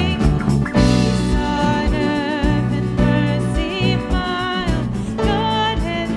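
Live worship music: a woman sings lead with vibrato over a strummed acoustic guitar and held low notes, with a steady beat.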